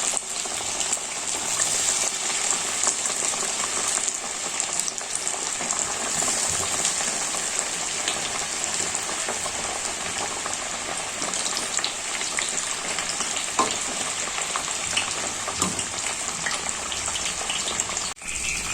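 Cornflakes-coated chicken pieces deep-frying in hot oil at medium heat: a steady sizzle peppered with small crackles, with a brief break near the end.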